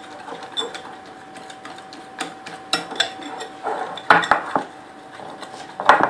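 Kitchen utensils clinking and knocking against dishes: scattered light clicks, with louder knocks about four seconds in and again near the end.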